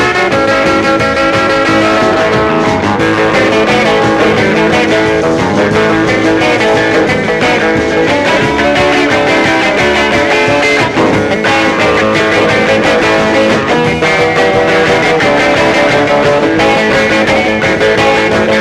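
Rockabilly music: an instrumental break with electric guitar over bass and drums.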